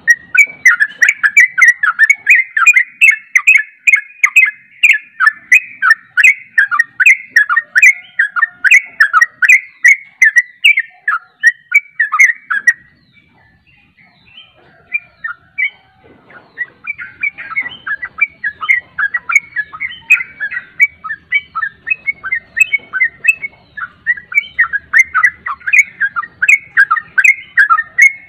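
Yellow-vented bulbul (trucuk) singing its rapid, continuous 'ropel' song, a fast string of short whistled phrases about three a second. It breaks off for a few seconds about halfway through, then resumes.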